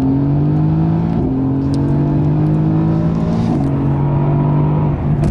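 Car engine accelerating hard through the gears, its pitch climbing and dropping with two upshifts, about a second in and again about three and a half seconds in.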